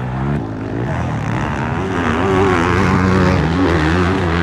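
Motocross dirt bike engines revving hard and easing off, their pitch rising and falling.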